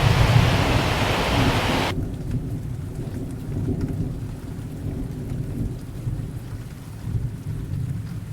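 Waterfall noise: a full rushing hiss that cuts off abruptly about two seconds in, leaving only a low rumble.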